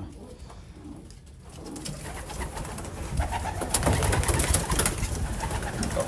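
Racing pigeons stirring in a small wooden loft: a dense run of scuffling and quick clicks with some low cooing, growing louder about two seconds in.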